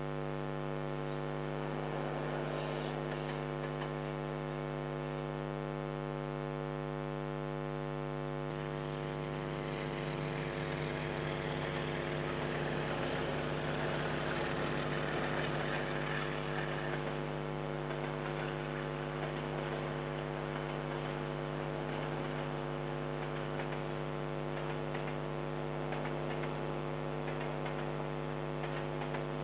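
Steady loud electrical mains hum on a security camera's audio, changing slightly about eight seconds in. Beneath it, a KiwiRail freight train passes: a rushing noise swells from about ten seconds in, peaks around the middle, then eases off as the wagons roll by.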